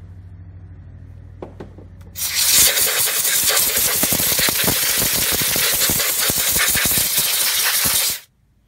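Compressed air hissing loudly from an air nozzle for about six seconds as it blows out a spark plug well, then cutting off suddenly. Before it, a couple of seconds of low steady hum with a few light clicks.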